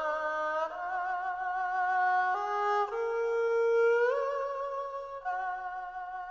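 Background music: a slow melody of long held notes with vibrato on a violin-like instrument.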